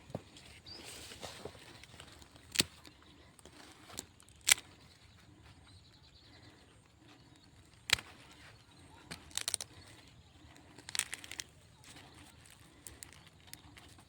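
Sweet corn plants being handled, with rustling and a few sharp snaps and crackles of the leaves and husks as an ear is checked for ripeness.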